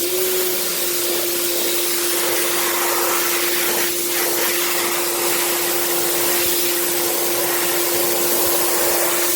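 Electric pressure washer switching on and running steadily: the motor and pump give a constant hum under the loud hiss of the high-pressure water jet from the wide 40-degree nozzle.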